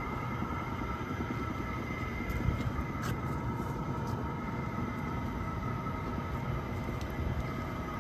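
The Gastown steam clock hissing steadily as it vents steam from its top, with a low rumble and two steady high tones. A few faint clicks sound over it.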